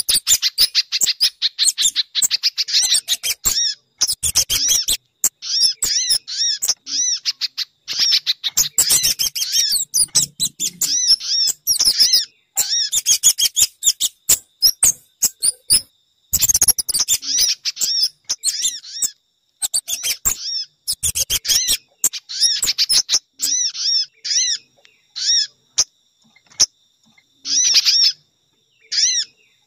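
Bird-lure recording of small songbirds' calls, a mix of sunbird and spiderhunter-type calls: rapid trains of sharp, high chirps in bursts with short breaks between them.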